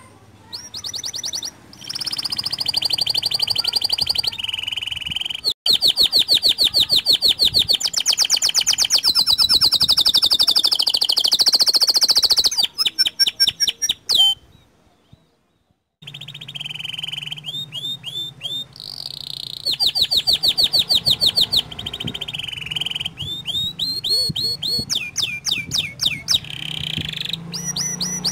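Small local canary singing long runs of fast trills, each a rapid string of repeated high notes, with a break of about a second and a half roughly halfway through.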